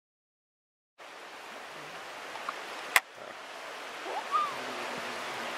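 Silence for about a second, then fast river water rushing steadily over a shallow riffle. A sharp click comes about halfway through, and a short high call rises and falls near the end.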